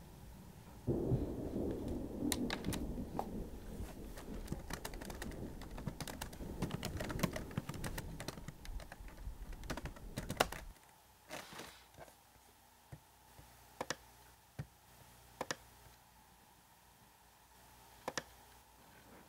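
Laptop keyboard typing in quick runs of keystrokes over a low rumbling noise that cuts off suddenly about halfway through. After that, a few separate key or button clicks.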